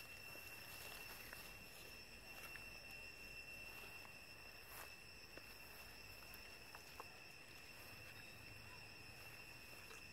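Near silence: faint outdoor ambience under a steady, high insect drone, with a few soft ticks.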